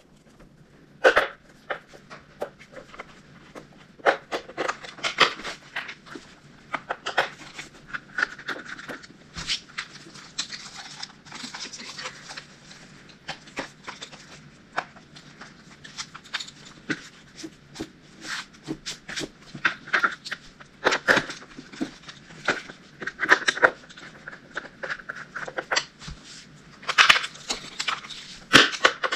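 Irregular clicks, knocks and scrapes of hard plastic as a K2 Lil Kat kids' snowboard binding is handled, its highback being worked into the notches on the baseplate.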